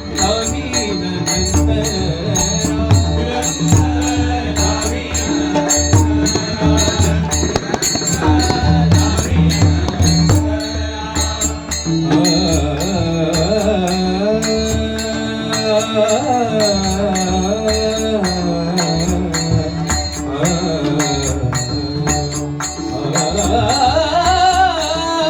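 Marathi bhajan music: a steady beat of sharp percussive strokes under a sliding melodic line that bends up and down from about halfway through.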